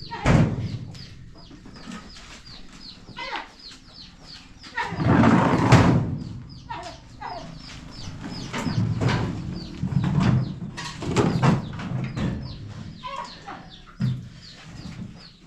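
Birds calling over and over in short, high chirps, broken by several louder, noisier calls or knocks. The longest of these comes about five to six seconds in.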